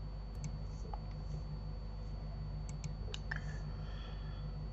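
A few scattered computer mouse and keyboard clicks, short and sharp, over a steady low electrical hum with a thin high whine.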